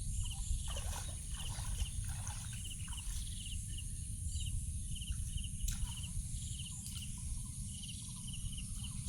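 Outdoor insect chorus: a steady high buzz, with a short pulsed chirp repeating about twice a second, over a constant low rumble.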